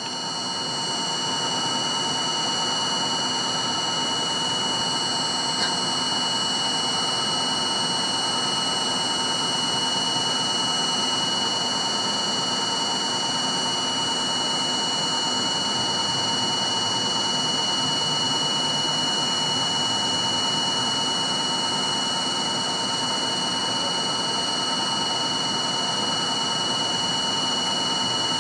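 R42 subway car standing in a station, its onboard equipment humming: a steady high-pitched whine of several tones over a hiss, with one small click about six seconds in.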